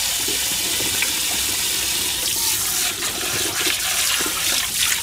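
Kitchen tap running in a steady stream into a stainless steel sink while a bowl is rinsed and rubbed by hand under the water.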